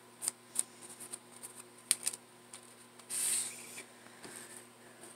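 Hands handling small craft materials on a tabletop: a few light clicks and taps, then a brief rustle a little past halfway.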